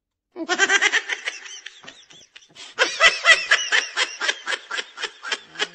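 A woman laughing: a run of quick giggles starting about half a second in, a brief pause, then a second, louder run of laughter.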